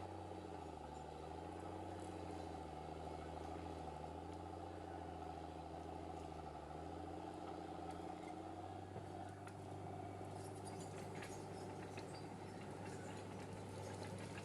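Diesel engine of a Caterpillar Drott track loader running at work. Its pitch dips and rises for the first nine seconds or so, then holds steadier.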